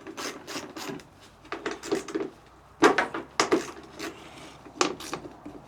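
Screws being taken out of a zero-turn mower's control panel by hand and the panel worked loose: a string of short, irregular clicks and scrapes.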